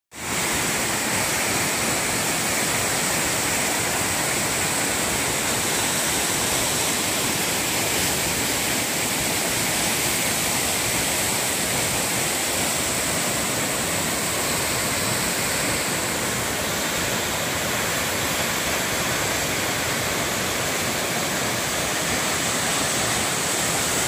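Tall waterfall rushing in a steady, unbroken roar, with a thin steady high whine running over it.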